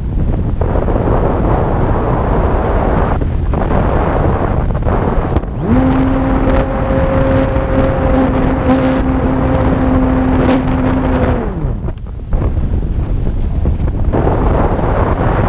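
Airflow rushing over the onboard microphone of a radio-controlled Heron powered glider in flight. About six seconds in, the glider's nose motor and propeller spin up to a steady hum, hold for about six seconds, then wind down.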